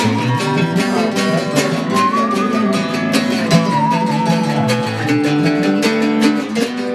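Band music: a strummed guitar keeping a steady rhythm, with a high melody line over it that holds long notes with vibrato, sliding up about two seconds in and falling away after three.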